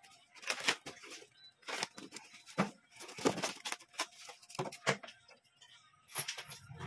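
Packaging around a new microwave magnetron being opened by hand: a series of irregular rustling and scraping noises.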